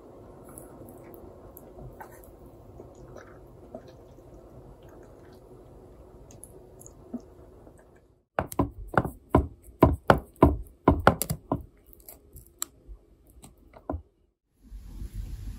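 Low room hum with a few faint clicks. About eight seconds in, a run of sharp, irregular clicks and knocks lasts about four seconds: wooden chopsticks and tableware knocking against ceramic bowls and a wooden tray.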